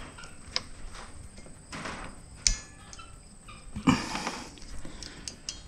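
Handling noise from a hand crimping tool and a solar cable connector pin being set into its jaws: a few separate small clicks with brief rustling, the loudest click about four seconds in.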